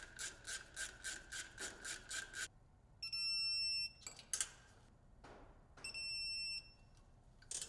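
A wrench ratcheting in a quick, even run of clicks, then an electronic torque wrench beeping twice, each beep a steady tone of about a second, signalling that the brake line cover bolts have reached their torque specification.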